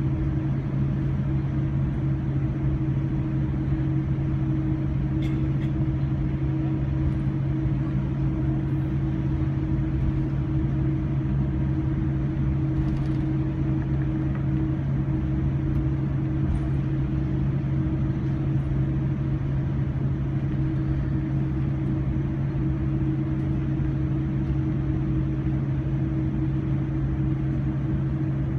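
Cabin noise inside a Boeing 787-9 taxiing on idle engines: a steady low rumble with a constant two-note hum that neither rises nor falls.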